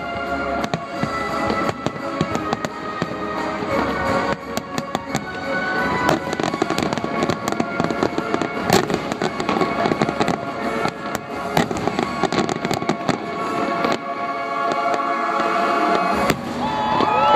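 Aerial firework shells bursting in quick succession, with many sharp bangs and dense crackling over music. Near the end a crowd starts cheering and whooping.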